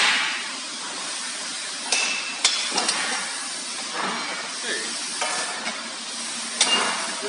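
A few sharp metal knocks and clinks, about two to three seconds in and again near the end, as steel frame sections of a rendering machine are handled during assembly, over a steady hiss of workshop noise.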